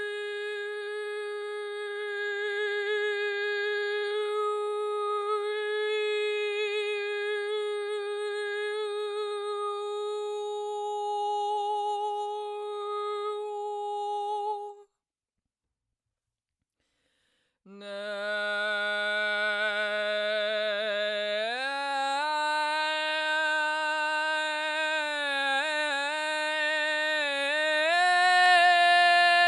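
Solo voice improvising in chest voice, holding one long steady note for about fifteen seconds before breaking off into silence for about three seconds. It comes back on a low held note that steps upward in pitch with small wavers and climbs higher again near the end.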